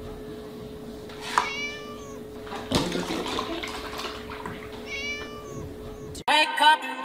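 A kitten meows twice, a few seconds apart. In between there is a knock, then milk pours and splashes from a tipped carton into a plastic tub, over a steady low hum.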